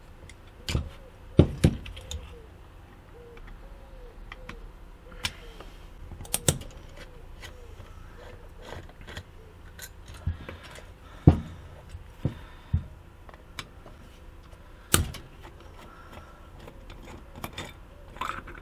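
Irregular small clicks and knocks of a screwdriver and loose metal parts against a cheap Chinese carburetor as its screws are worked out and the float bowl is taken off. The loudest knocks come about a second and a half in and about eleven seconds in.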